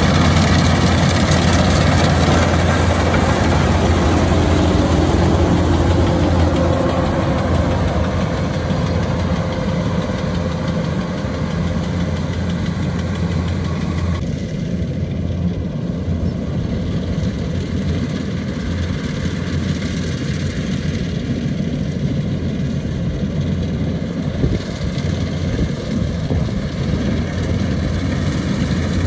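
Kubota DC-105X rice combine harvester's diesel engine running steadily with a deep hum. It grows quieter about halfway through and louder again near the end.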